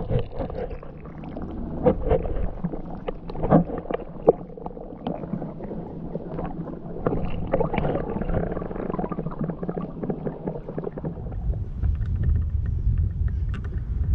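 Muffled underwater water noise, heard with the camera held below the surface as a largemouth bass is let go: sloshing with scattered clicks and knocks. About eleven seconds in this gives way to a steady low rumble.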